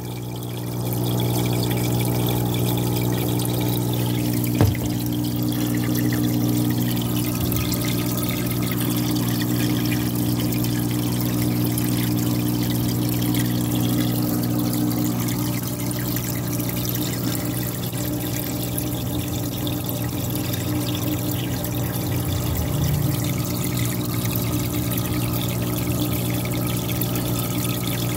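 Aquarium filter running in a fish tub: water steadily pouring and trickling back into the tank over a steady low electric hum from the pump motor, with one brief knock about four and a half seconds in.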